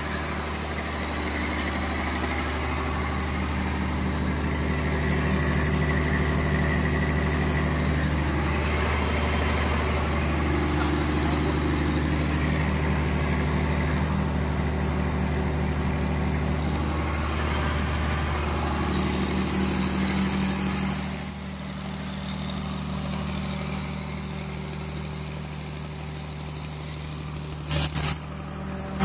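Cummins diesel generator set running at a steady speed. About two-thirds of the way through it turns quieter and duller, and two short knocks come near the end.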